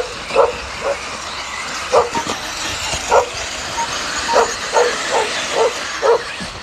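An animal barking: about ten short, sharp barks in irregular succession, over a steady background hiss.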